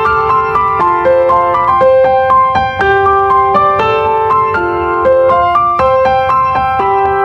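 Background music: a piano or electric keyboard playing a gentle melody with a steady pulse.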